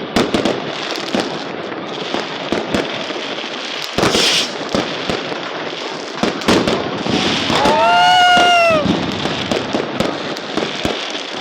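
Fireworks going off: repeated sharp bangs and popping over a continuous crackle. About eight seconds in, a high pitched tone rises and falls for about a second.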